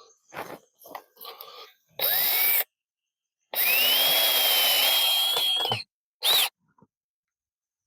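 Power drill driving a screw: a short spin-up with a rising whine, then a steady run of about two seconds, then a brief final burst as the screw seats. Faint rustling and handling noises come before it.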